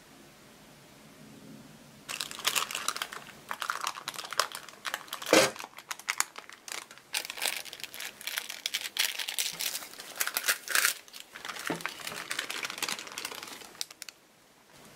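Parchment baking paper crinkling and rustling in irregular bursts as it is unfolded and peeled off a chocolate terrine, with one louder crackle about five seconds in. It starts about two seconds in and stops near the end.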